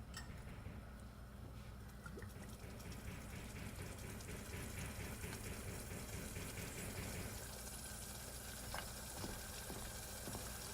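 Worcestershire sauce trickling and dripping out of its bottle into a tablespoon, faint over a steady low background hum, with a light click near the end.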